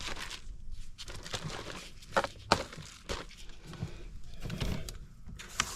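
Irregular knocks and clicks with short scraping rustles, from someone handling things and moving about while working on a floor. The sharpest knocks come about two seconds in.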